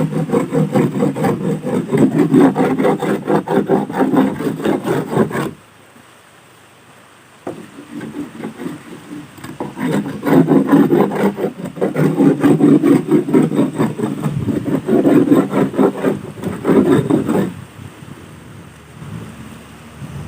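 Oysters being scraped off a small boat's hull with a hand tool: fast, rough, repeated scraping strokes. The scraping stops for about two seconds a quarter of the way in, starts again softly, grows busy, and eases off near the end.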